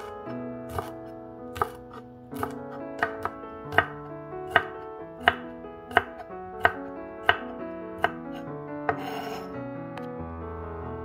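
Chef's knife chopping green chilies on a wooden cutting board: sharp, irregular knocks about once or twice a second, ending about nine seconds in with a brief rasping sound, over soft piano background music.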